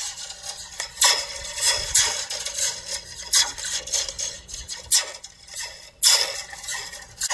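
Metal slinky hanging from a plastic cup, its coils hitting the ground again and again: each hit sends a ringing zap up the spring that the cup amplifies, the laser-blaster 'pew' sound. A string of sharp, ringing shots, about one a second.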